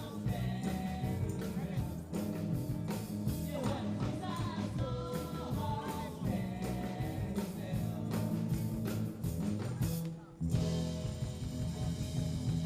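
Rock band playing live, with drums, electric guitar and a singing voice. The band breaks off briefly about ten seconds in, then comes back in loudly.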